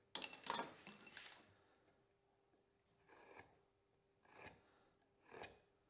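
A marking tool scratching across a wooden workpiece to mark a joint's depth line: a quick run of short strokes at the start, then three single short strokes about a second apart.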